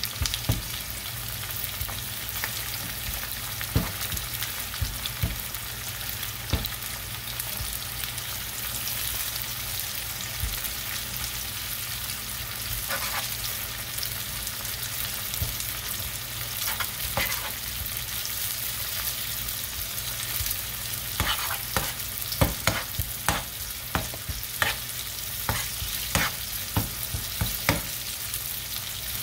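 Bacon and sliced onions frying in a skillet with a steady sizzling hiss, while a metal spoon stirs them, clicking and scraping against the pan now and then and much more often over the last several seconds.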